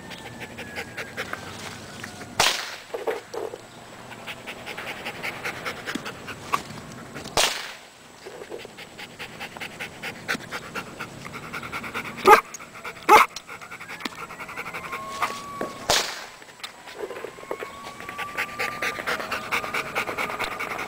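A dog panting fast and hard close by. Five sharp cracks are scattered through it, the loudest two about a second apart past the middle.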